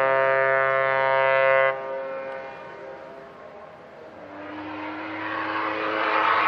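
A ship's horn sounds a long steady blast that cuts off about two seconds in. From about four seconds a lower steam whistle from a steamship comes in with a rush of hissing steam, growing louder toward the end.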